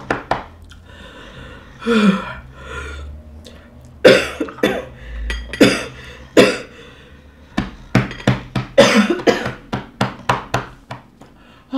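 A woman coughing in a string of short, forceful coughs and throat-clearings with short pauses between them, as if choking on a mouthful of rice. The choking is staged as a prank.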